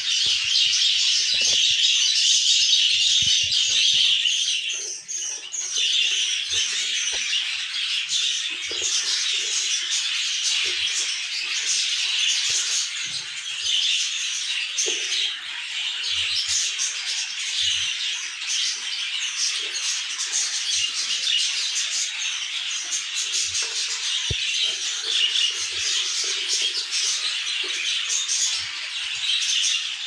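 Budgerigars chattering without pause, a dense high-pitched twittering, with scattered soft knocks and rustles from a hand working in the wooden nest box.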